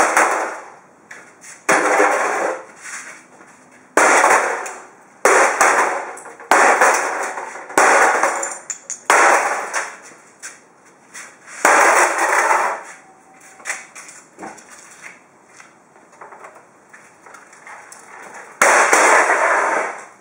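Sony CDP-CE305 CD player's metal casing being smashed on concrete: about nine loud crashing blows, most a second or two apart with a longer pause before the last, each followed by a short rattle of loose parts.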